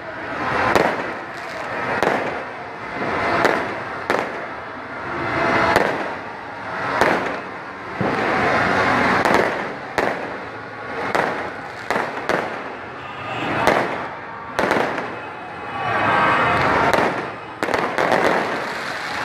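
Many fireworks going off together: sharp bangs about once a second over a rush of noise that swells and fades, with rockets streaking up and bursting overhead.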